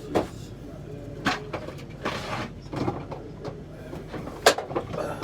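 Three sharp knocks or clicks, the loudest near the end, over a low steady background hum.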